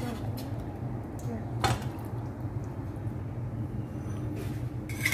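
A metal spatula knocks once, sharply, against a stainless steel wok about one and a half seconds in, as it works the braised whole chicken; a steady low hum runs underneath.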